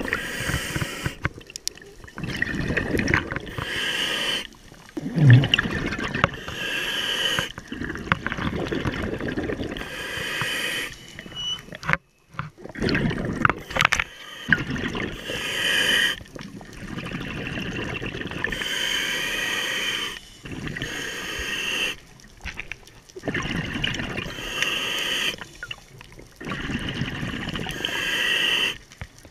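Scuba diver breathing through a regulator underwater: bursts of gurgling exhaled bubbles alternating with quieter gaps, repeating every few seconds.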